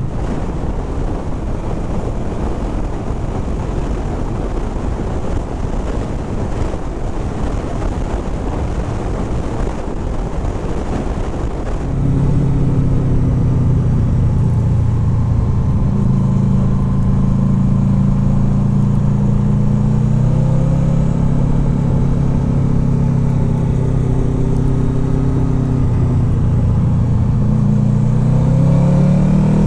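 Honda VFR800F's V4 engine under way, with wind and road noise over the microphone; about twelve seconds in the engine note comes up strongly and holds steady, then climbs near the end as the bike accelerates.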